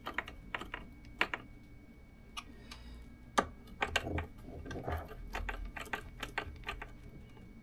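Irregular light clicks and taps from small hardware being handled and tightened with a screwdriver, with a few louder knocks about three and a half and four seconds in.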